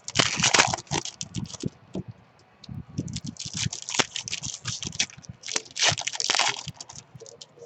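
Foil trading-card pack wrappers crinkling and tearing, and cards being handled, in three crackly bursts: one at the start, one about three seconds in, and one near six seconds.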